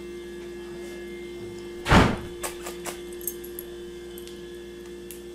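A single heavy thump about two seconds in, followed by a few light clicks, over a steady electrical hum.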